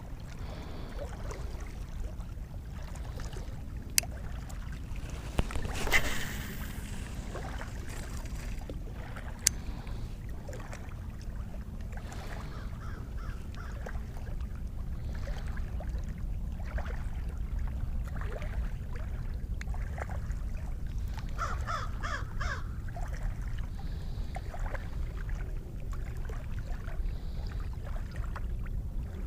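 A crow cawing several times in quick succession, about two-thirds of the way through, over a steady low rumble. A few sharp clicks and a brief rush of noise come several seconds in.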